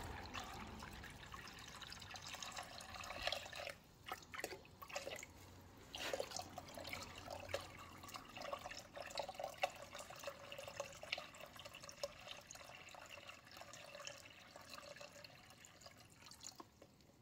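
Thin stream of water poured from a flexible rubber tub into another tub of water, trickling and splashing steadily, then tapering off near the end.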